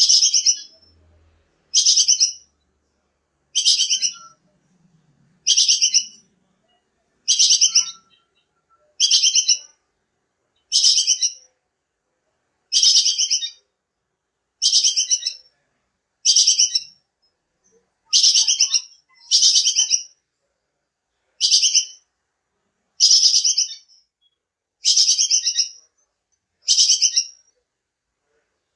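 A high, fast rattling chatter call, repeated at an even pace about every two seconds, each call under a second long. It is one of the looped calls played as a masteran to teach songbirds.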